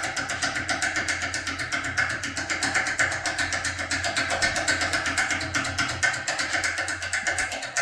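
Rapid metallic clicking and rattling of a foil impression tool being jiggled back and forth in a Tessa TX80 lock cylinder with a standard handle, as it works against an interactive pin that keeps the lock from turning.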